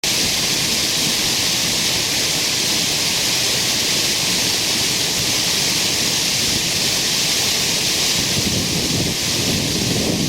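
Waterfall on a creek rushing steadily, a dense even hiss of falling water. Near the end, gusts of wind buffet the microphone in low rumbles.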